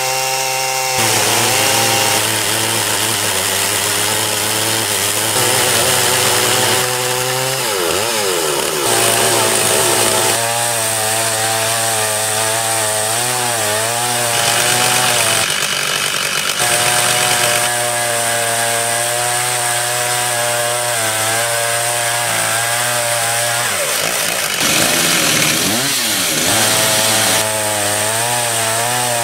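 Large two-stroke chainsaw held at full throttle, ripping lengthwise through an oak log in an Alaskan chainsaw mill. The engine note stays high and steady under load, dipping and recovering in pitch about a third of the way in and again near the end.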